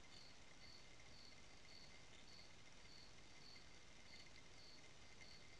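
Faint cricket chirping at night, an even train of short high chirps about twice a second, over a low hiss.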